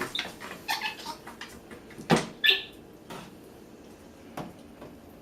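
Scattered taps and knocks, the loudest about two seconds in, followed right away by one short high squawk from an African grey parrot.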